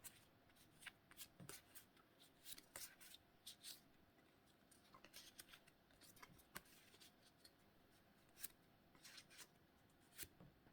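Faint rustling and flicking of Pokémon trading cards being slid one behind another through the hands, in short scattered brushes and snaps.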